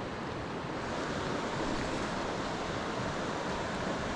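Steady rushing of a river's current flowing over a shallow rocky riffle, a little louder from about a second in.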